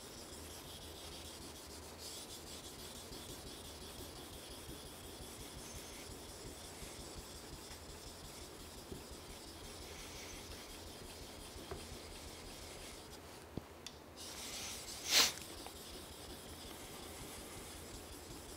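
Kitchen knife blade stroked back and forth on a wet, slurried Tsushima Nagura natural whetstone: a faint, steady rubbing scrape of steel through the stone mud. One brief louder swish comes about three-quarters of the way through.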